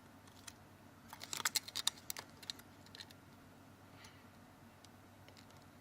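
Light, quick plastic clicks and taps, bunched together from about one to two and a half seconds in, as the replacement screen is handled and lined up against the opened Samsung Galaxy S2.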